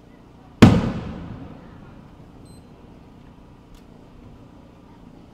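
A single loud firework shell bursting with a sharp boom about half a second in, its echo rolling away over the next second or so.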